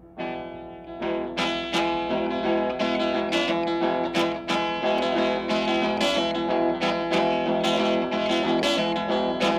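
Electric blues guitar playing a song's introduction: a repeated picked figure that comes in just after the start and settles into a steady rhythm of about two or three strong notes a second.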